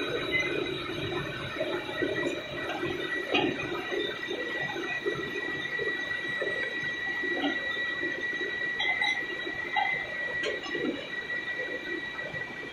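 Machine-shop floor noise: running machinery gives a steady high whine over a rushing hum, with a few sharp clicks and knocks scattered through.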